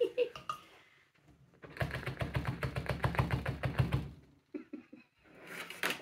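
A fast, even run of light knocks lasting a couple of seconds: a plastic funnel rattled against a plastic bottle to work very thick conditioner down through it.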